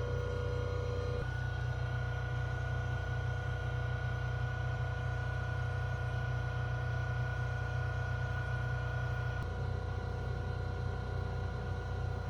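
Steady low machine hum with a thin whine over it; the whine steps up in pitch about a second in and shifts again near the end.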